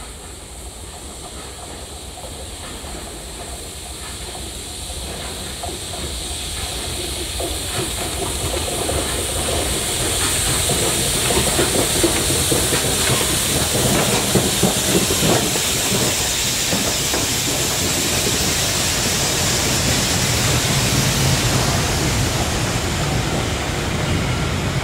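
LMS Princess Coronation Class four-cylinder Pacific steam locomotive 6233 Duchess of Sutherland approaching and running through, growing steadily louder over the first ten seconds with steam hissing from around its cylinders. Its wheels clatter over the track as the locomotive and its coach pass, with the hiss and rumble carrying on to the end.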